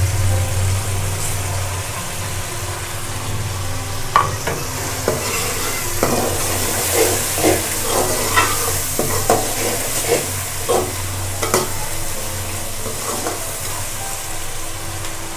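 Onion-tomato masala sizzling in hot oil in an aluminium karahi as dry spices go in. A slotted metal spoon stirs it, scraping and clicking against the pan again and again from about four seconds in.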